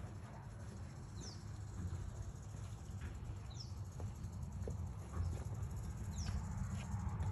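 Eastern diamondback rattlesnake rattling its tail in a steady, dry buzz over a low rumble. A bird's short falling chirp comes in about three times.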